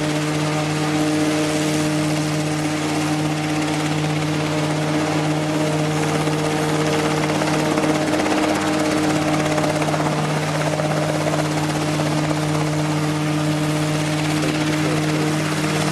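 A homemade single-seat ultralight helicopter running at a steady pitch, its engine and spinning rotor heard together as it hovers just off the ground.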